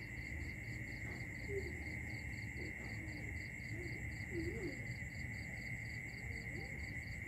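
Faint, steady insect chirping: a constant high tone with a quicker, even pulsing above it, about four pulses a second, over a low background hum.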